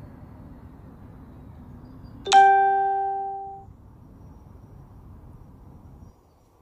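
A single loud electronic ding: one clean pitched tone that starts sharply about two seconds in and fades away over about a second, against faint outdoor background noise.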